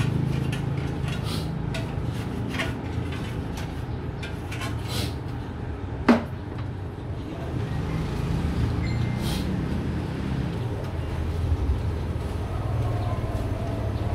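Steady low hum with small scattered clicks in the first few seconds and one sharp knock about six seconds in.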